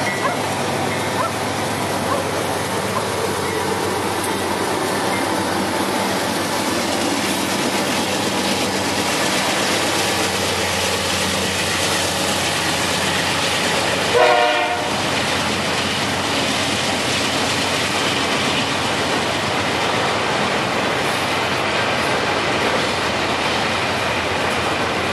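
Diesel-hauled freight train of hopper cars rolling past, with a steady rumble of wheels on rail and the locomotive's diesel engine running. About 14 seconds in, a short locomotive horn blast sounds and is the loudest moment.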